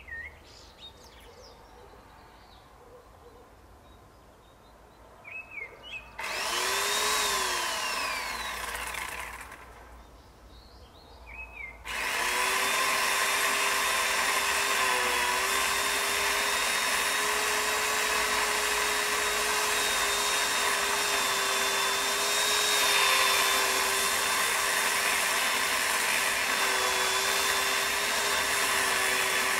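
Birds chirp briefly, then a power saw starts about six seconds in, its pitch rising and falling for a few seconds before it stops. About twelve seconds in it starts again and runs steadily with a high whine, used to cut the tree.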